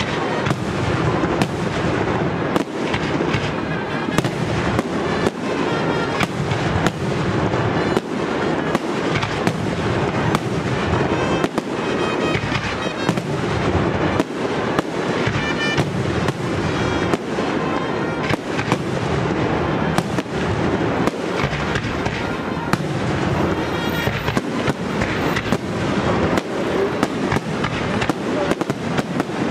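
Aerial fireworks display: a dense, unbroken barrage of shell bursts and bangs, several a second.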